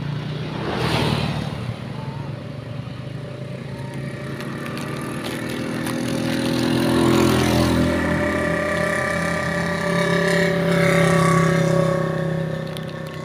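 A motor vehicle engine running past, getting louder to a peak about seven seconds in and again around eleven seconds, then fading near the end.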